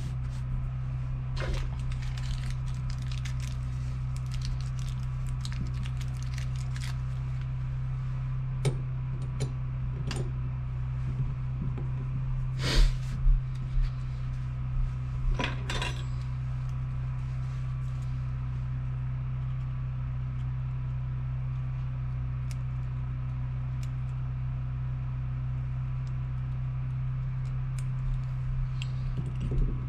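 Small metal turbo parts and hand tools clinking and clicking on a wooden workbench as a K24 turbocharger is reassembled, with the sharpest clicks about 13 and 16 seconds in. A steady low hum runs underneath.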